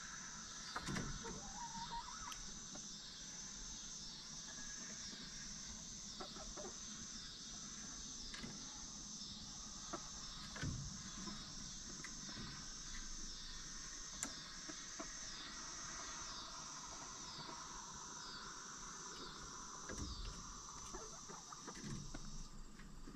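Insects chirping in a steady high-pitched rhythm, about one chirp a second, stopping shortly before the end. A few soft thumps and scratches from a hen moving about and hopping up to her perch.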